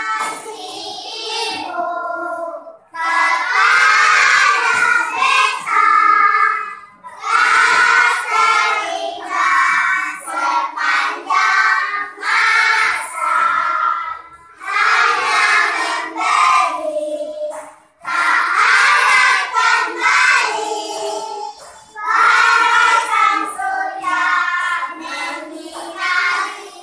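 A class of young children singing together in unison, in phrases of a few seconds with short breaks between them.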